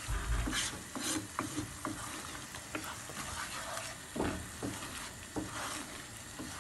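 Wooden spatula scraping and stirring a thick yogurt-and-spice chicken masala in a non-stick frying pan, in irregular strokes over a steady sizzle as the masala fries down.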